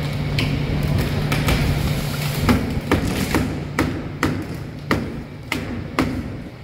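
Hammer blows on the wooden shipping crate as it is knocked apart: about a dozen sharp knocks, irregularly spaced at roughly two a second, over a steady low hum.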